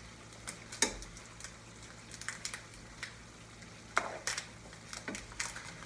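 A cooking utensil scraping and clacking in a frying pan of stir-fried vegetables as some are scooped out into a bowl, over a faint sizzle. There are sharp clacks about a second in and a cluster of them around four to five seconds in.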